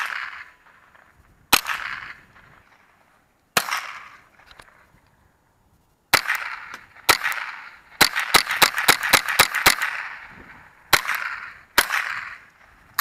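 Rifle shots, each with an echo trailing off: single shots a second or two apart, then a fast string of about ten shots in under two seconds, then two more.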